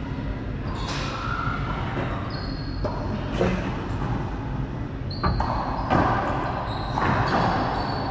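Racquetball rally: the rubber ball smacking off racquets and the court walls, about six sharp hits spread a second or so apart, each with a short echo. Shoe soles squeak on the hardwood floor between hits.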